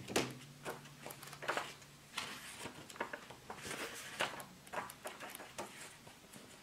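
Pages of a thick paperback coloring book being leafed through: a string of quick, irregular paper flicks and rustles.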